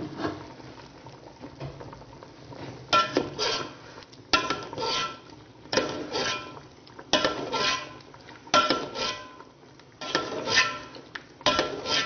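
Metal ladle clinking against a metal pot as it scoops up the simmering sauce and pours it back over a whole chicken, in a regular rhythm about once every second and a half, seven times from about three seconds in. A low simmer runs beneath.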